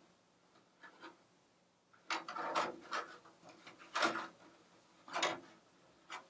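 Hands handling and turning over the clear, unpainted plastic body shell of a 1/10-scale RC pickup kit, the thin shell rubbing and knocking in a series of short scraping bursts, the loudest about two, four and five seconds in.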